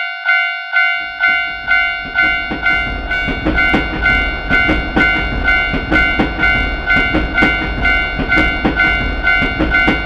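Japanese railroad-crossing warning bell dinging steadily at about two strikes a second. From about a second in, a passing train's rumble and wheel clacks over rail joints join it.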